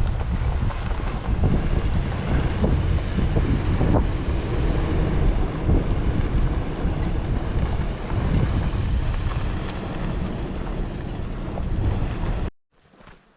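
Wind buffeting the microphone: a loud, gusty low rumble with occasional knocks, cut off abruptly near the end.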